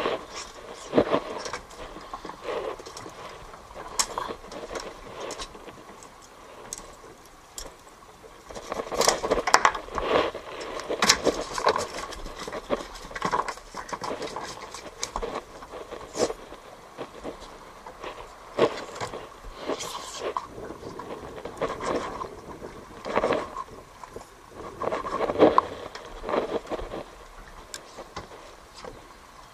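Irregular knocks, scrapes and small rattles of fishing gear being handled aboard a small boat while a baited line is rigged and let down, coming in busier clusters with pauses between.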